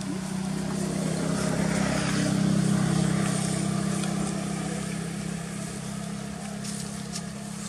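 A motor's steady low hum that grows louder over the first few seconds and then slowly fades.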